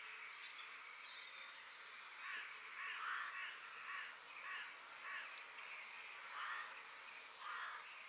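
Forest bird ambience: from about two seconds in, a bird gives a run of short, rough calls every half second to a second, over a steady high hiss and a few thin high chirps.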